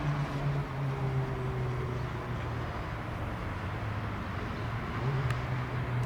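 Airbus A319 airliner's jet engines on approach: a steady low hum over a wash of noise, its pitch sinking slowly and stepping back up about five seconds in.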